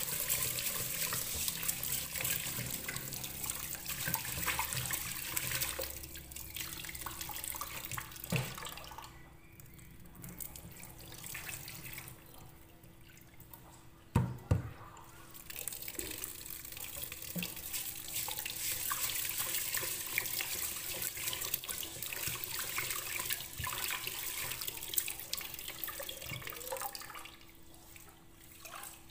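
Kitchen tap running into a metal pot in a stainless steel sink while rice is washed in it by hand. The flow drops off a couple of times, and about halfway through there are two sharp knocks.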